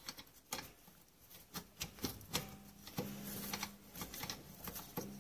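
Light, irregular metallic clicks and ticks as the wing-nut adjuster on the Yamaha Bruin 350's rear drum-brake cable and rod is turned by hand to set the brake. A faint low hum comes and goes twice behind the clicking.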